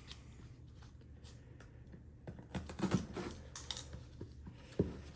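Scattered light clicks, taps and rustles of a cardboard shipping box being handled and opened, with a sharper knock near the end.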